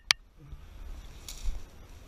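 Someone pushing on foot through dense, stiff scrub vegetation: a sharp snap just after the start, then a short brushing rustle of leaves past the middle, over a low rumble.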